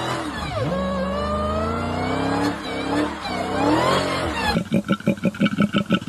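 A revving, engine-like sound whose pitch dips and then climbs in several glides, changing near the end to a rapid pulsing of about five beats a second.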